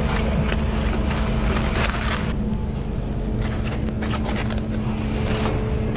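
Steady mechanical hum of commercial kitchen equipment, with scattered light clicks and clatter of kitchen work.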